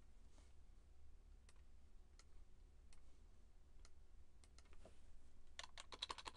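Faint, scattered computer mouse clicks about once a second, then a quick burst of typing on a computer keyboard near the end.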